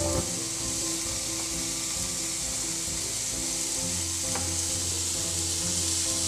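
Chopped vegetables sizzling steadily in a nonstick pan as chopped tomato goes in, with a spatula stirring and a couple of light knocks against the pan.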